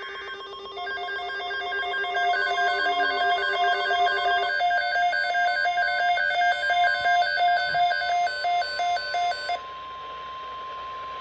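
Emergency Alert System alert tones from a weather-radio broadcast. A steady two-note tone stops about four seconds in, under a rapid warbling beep pattern that cuts off near the end, leaving a single steady tone that leads into the spoken alert message.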